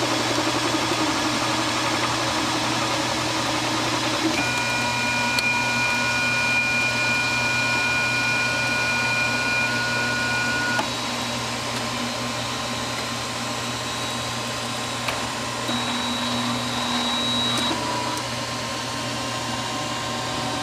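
FlashForge Dreamer 3D printer running: steady fan and motor noise with stepper-motor whines that change pitch several times as the moves change, and a couple of faint knocks.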